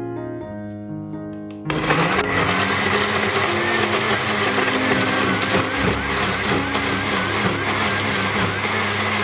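Countertop blender switching on a little under two seconds in and running steadily at full speed, chopping tomatoes, red onion and herbs into a purée. Piano background music plays throughout.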